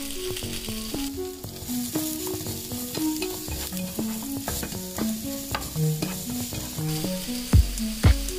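Zucchini slices sizzling in a nonstick frying pan while a wooden spatula stirs and scrapes them, with short clicks of wood on the pan. Light background music with a plucked melody plays throughout, and a low thumping beat comes in near the end.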